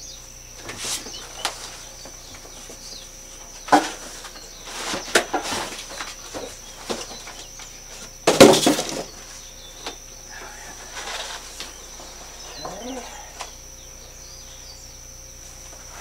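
Cardboard shipping box and packing being handled, with rustling and scraping cardboard. There is a sharp knock about four seconds in, and the loudest burst of handling noise comes just after eight seconds.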